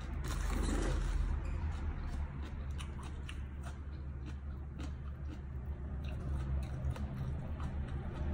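A person chewing crisp raw vegetables and herbs, with many small crunching clicks, louder for about a second near the start, over a steady low hum.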